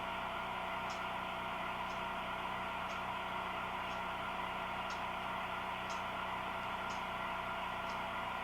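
HO-scale model train running: a steady electric motor hum with a faint tick about once a second.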